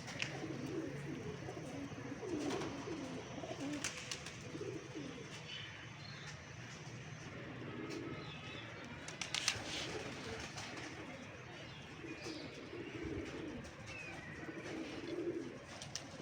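Several domestic pigeons cooing over and over, low warbling calls. There are a few sharp clicks, the loudest about nine and a half seconds in.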